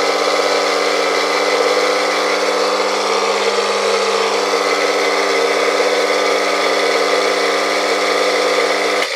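Three-phase induction motor, wired in delta and run on single-phase 220 V through a capacitor, running with a steady electrical hum and its bearings droning. The bearings have not been replaced. The hum cuts off suddenly near the end as the motor is unplugged.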